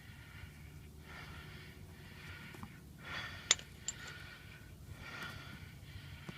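Soft breathing close to the microphone, a few slow breaths, with two small sharp clicks a little past the middle.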